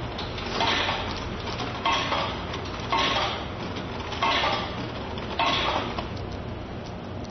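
Coins clinking and rattling down through the coin mechanism of a tempura soba and udon vending machine: five metallic rattles, each about half a second long, spaced a second or so apart.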